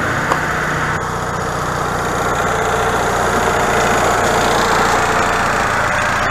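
An RV's built-in generator engine running steadily. It is warming up after sitting unused for months.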